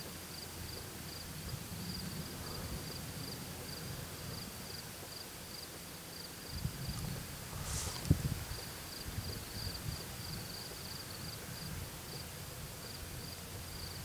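Night insects chirping in a steady, evenly pulsing high trill, over low rumbling, with a brief noise and a few low thumps about eight seconds in.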